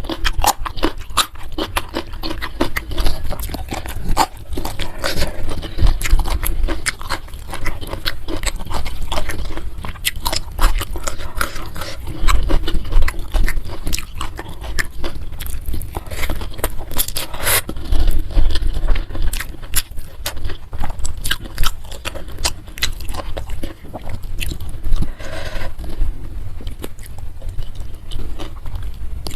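Close-miked chewing and crunching of food, with many irregular wet mouth clicks and occasional scraping sounds.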